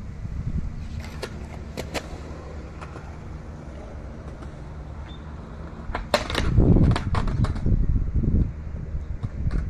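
Skateboard trick on a concrete ledge: a few scattered clicks, then about six seconds in a cluster of sharp cracks from the tail pop and the trucks hitting the ledge, followed by a grinding rumble lasting about two seconds. A steady low wind rumble on the microphone runs underneath.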